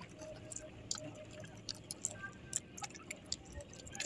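Soft drips of water and small irregular clicks as a fishing handline is pulled in by hand over the side of a wooden outrigger canoe.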